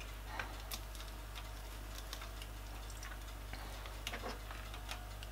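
Faint, scattered light taps and clicks of a glass cup and a table knife on a plastic cutting board as a fried plantain piece is pressed flat and lifted, over a low steady hum.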